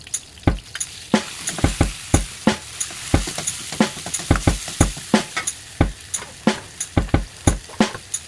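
Stir-frying: a metal spatula or ladle knocks and scrapes against the pan about twice a second, over a steady sizzle of food in hot oil.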